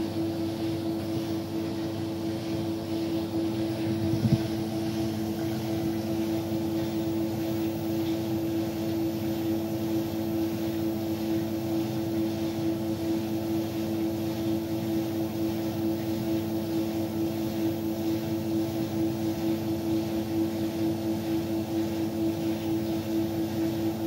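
Beko WTK104121W front-loading washing machine on the intermediate fast spin of its drum clean programme: the drum spinning at steady speed with a constant motor tone. A single short knock sounds about four seconds in.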